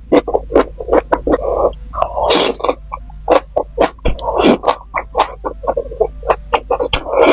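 Close-miked chewing and lip-smacking of a person eating, a fast run of wet clicks about four or five a second, with a few longer noisy sounds about two, four and a half and seven seconds in, over a low steady hum.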